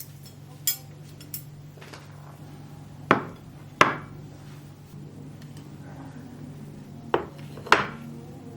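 Kitchenware being handled, clinking and knocking. There are a few sharp clinks, the loudest in two pairs about three seconds in and near the end, over a steady low hum.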